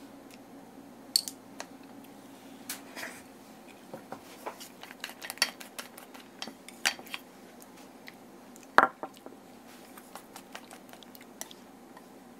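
Wooden chopsticks clicking and scraping against a stainless steel mixing bowl while stirring, in quick irregular taps with one louder clank about nine seconds in. A faint steady hum runs underneath.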